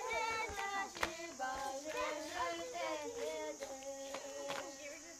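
A group of Tibetan children and teenagers singing a song together, holding steady notes, with footsteps and a few sharp knocks as they dance in a circle.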